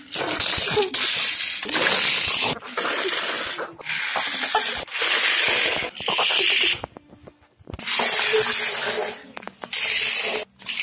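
Repeated bursts of loud hissing noise, each about a second long, broken by short gaps, nine or ten in all.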